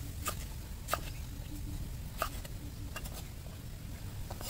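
Cleaver chopping pickled greens on a wooden chopping block: a few sharp, scattered knocks about a second apart.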